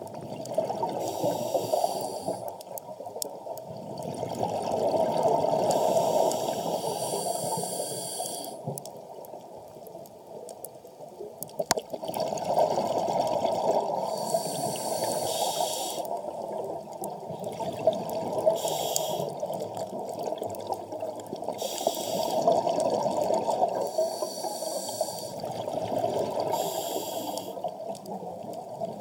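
Scuba diver breathing through a regulator underwater: exhaled bubbles bubbling up in swells every four to five seconds, with hissing between them, and one sharp click about halfway through.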